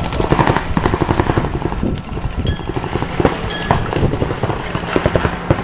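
Rapid, irregular string of sharp clicks and cracks over a steady low hum, easing off for a moment about two seconds in.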